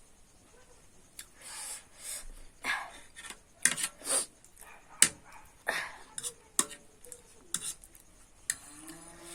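Cutlery clinking and scraping against a plate, irregular sharp clicks mixed with short noisy scrapes, while noodles are eaten.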